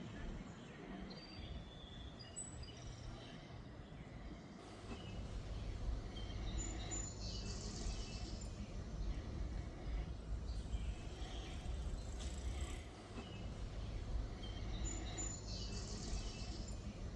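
Small birds chirping and singing, with short high notes and a trilled phrase that recurs twice. A low rumble comes up about four and a half seconds in and stays under the birdsong.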